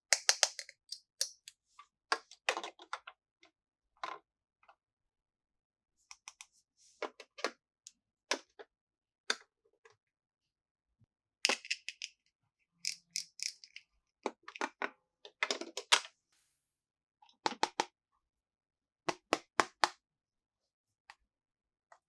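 Small plastic toy pieces being handled, clicking and clacking in short quick clusters with pauses between.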